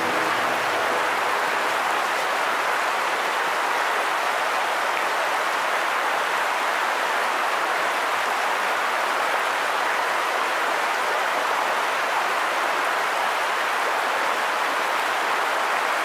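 Shallow creek water flowing steadily over stones in the canyon floor, a constant watery hiss with no change throughout.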